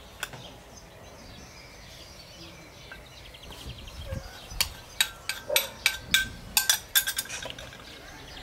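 Sharp metallic clinks against a stainless steel stockpot, a quick run of them lasting about three seconds in the second half, as barley flour is added to thin nettle soup and worked in with a spoon.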